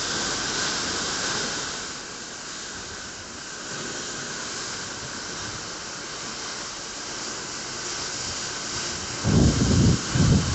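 Steady hiss of rain and wind over a stormy sea. About nine seconds in, gusts strike the microphone in loud, low buffeting bursts.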